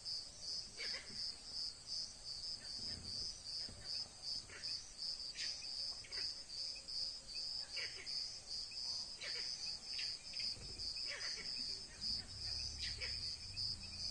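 Insects chirping steadily in a high, pulsing trill of about three pulses a second. Short falling chirps sound over it now and then.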